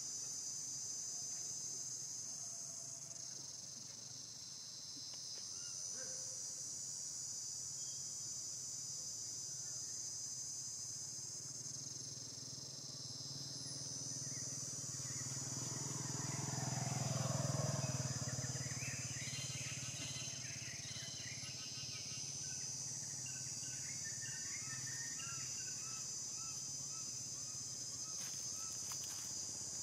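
Steady high-pitched insect chorus. About halfway through, a low rumble swells and fades with a falling sweep in pitch, followed by a run of short chirping calls.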